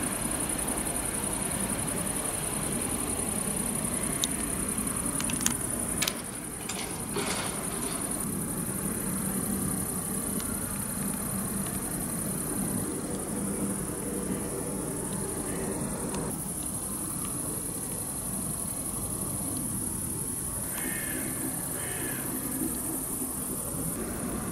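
Crickets chirping steadily in a high, continuous band, with a low background rumble beneath. A few sharp clicks come about five to seven seconds in.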